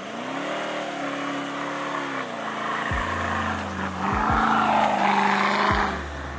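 Toyota LandCruiser engines revving hard in soft sand with wheels spinning, during a snatch-strap recovery of a bogged LandCruiser and boat trailer. The engine note rises at the start, drops off about two seconds in, then climbs again with a rush of spinning tyres and sand toward the end.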